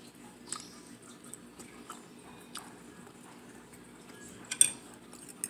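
Eating sounds: small scattered clicks and smacks of steak being pulled apart and eaten by hand, then a sharp clink of a fork against the plate about four and a half seconds in, the loudest sound.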